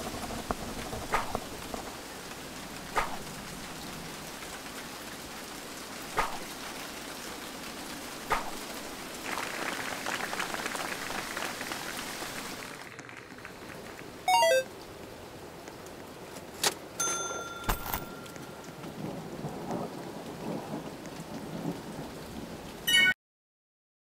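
Kitchen noises: a steady hiss with sharp clicks and knocks every couple of seconds, the hiss dropping away about halfway through. Later comes a short run of ticks falling in pitch and a brief steady beep.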